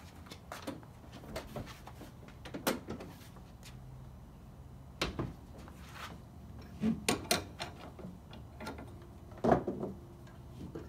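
Tie-down straps being taken off a bar on the van's rear door: a string of separate clicks and clanks from the hooks and door hardware, the loudest near the end.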